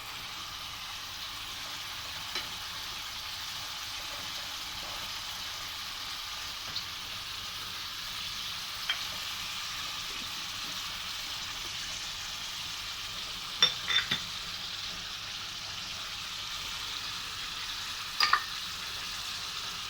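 Squid and chili frying in hot oil in a pan, sizzling steadily while being stirred, with a few sharp clinks of the utensil against the pan, the loudest a quick cluster about two-thirds of the way through and another near the end.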